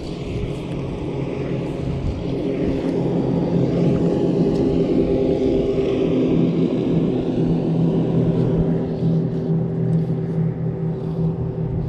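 Steady propeller hum made of several pitched tones over a hiss. It grows louder over the first few seconds, then holds.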